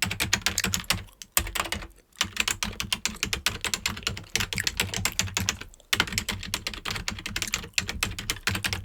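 Fast typing on a computer keyboard: rapid runs of key clicks with brief pauses about two seconds and six seconds in.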